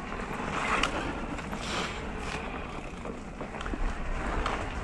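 Mountain bike ridden along a dirt singletrack: tyres rolling over loose ground and the bike rattling, a steady rushing noise with scattered clicks and knocks.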